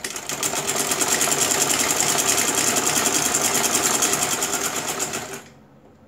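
Black domestic sewing machine stitching a seam, running up to speed over about the first second, then a rapid, even run of needle strokes that stops about five and a half seconds in.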